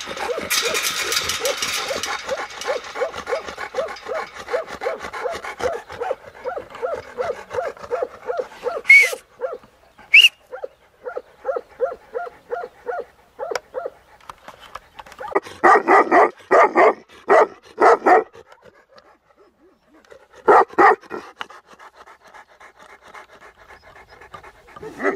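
Tibetan Mastiffs panting rapidly close by, with two brief high-pitched squeals about nine seconds in. Then comes a run of about five deep barks, the loudest sounds here, and one more bark a couple of seconds later.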